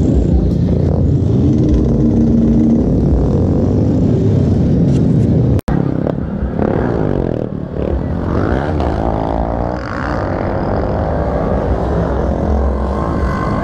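Several motorcycle engines running close by, with revving that rises in pitch several times in the second half. The sound cuts out for an instant about halfway.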